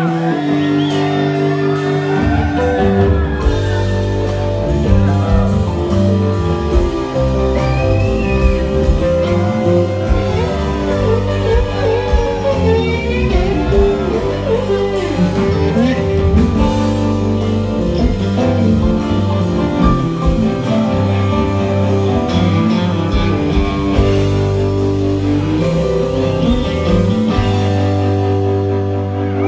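Southern rock band playing live: electric guitars over bass and drums, with a guitar line bending notes. The bass and drums come in heavily about two seconds in.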